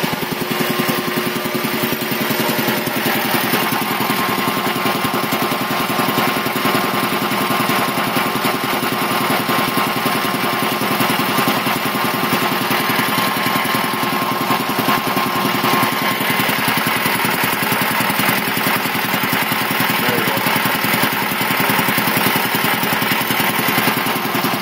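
Quincy QR 325 reciprocating air-compressor pump, belt-driven by a 5 hp single-phase GE electric motor, running steadily with a rapid, even pulsing as it builds tank pressure.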